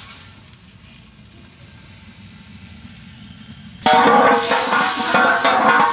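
Butter sizzling as it melts in a large hot metal pot. A faint sizzle at first, then a loud sizzle starting suddenly about four seconds in, as the butter foams.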